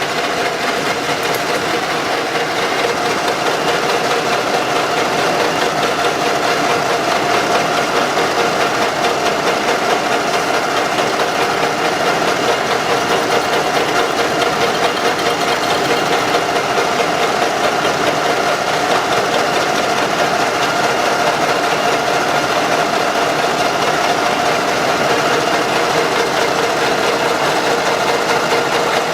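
Metal lathe running steadily with a constant whine, turning down the camshaft end cap by about half a millimetre to take up the camshaft's axial play.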